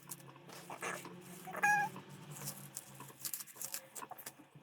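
Kale leaves being pulled off their thick stalks by hand: scattered crackling and rustling snaps of the leaves tearing away, with one brief high squeak a little before the middle.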